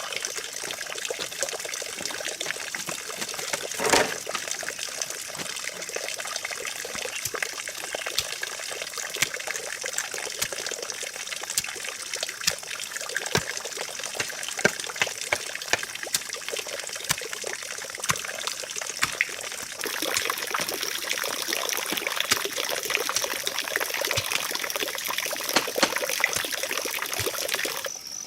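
Water trickling, with scattered clicks and knocks and one louder knock about four seconds in; the hiss grows louder about twenty seconds in.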